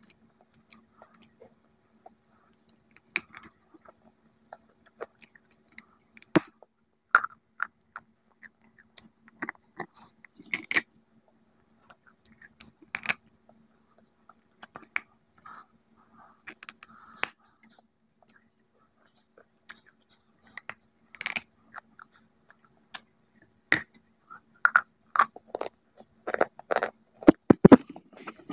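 Close-up crunching and chewing of a hard white bar, said by the title to be a salt bar: sharp crunches come every second or so, growing busier and louder near the end.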